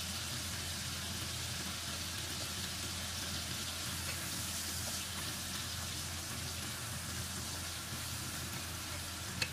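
Pork pieces and pork fat frying in oil in a stone-coated wok, sizzling steadily, with a single short knock just before the end.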